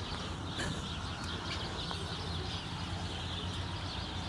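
Steady outdoor ambience: faint, continuous chirping of small birds over a low rumble, with no loud calls.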